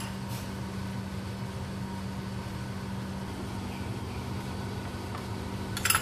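Steady low machine hum with a constant drone, and a short clink of a metal spoon against a ceramic bowl just before the end.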